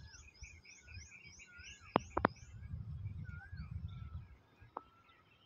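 Wild birds calling: a quick run of high, rising notes at about four a second that stops about two and a half seconds in, with lower whistled notes that go up and down. A few sharp clicks about two seconds in, and a low rumble under the first part.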